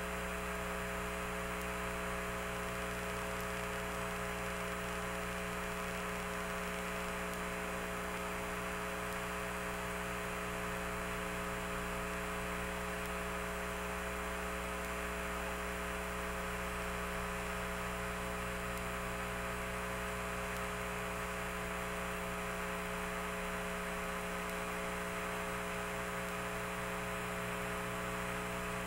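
Steady electrical hum with hiss, made of several constant tones that never change.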